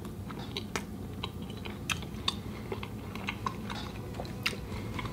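A person chewing a mouthful of creamed chipped beef on toast, with irregular small crunches and mouth clicks.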